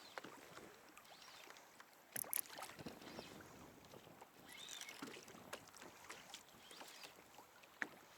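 Near silence on a fishing kayak: faint water and hull noise with scattered light clicks, a sharp high double tick about two seconds in and another sharp click near the end.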